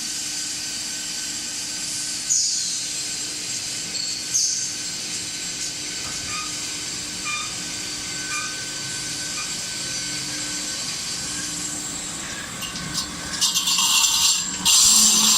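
Automatic saw-blade sharpening machine running, a steady whine with several constant tones over a hiss. About two seconds before the end, loud rasping grinding noise starts in bursts as the grinding wheel works the saw blade.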